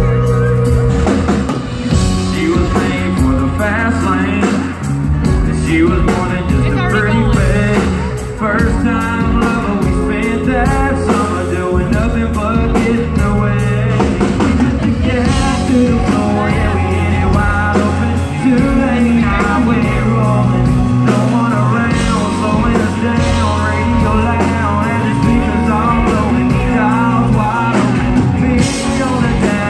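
Live country-rock band playing loudly through a PA: a male lead vocal sung into a stage microphone over electric and acoustic guitars, bass and drums.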